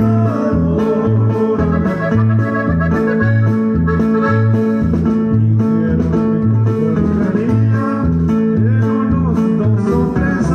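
Norteño band playing an instrumental passage with no singing. A reedy, organ-like melody sits over plucked strings, a bass that bounces evenly between two notes, and a steady drum beat.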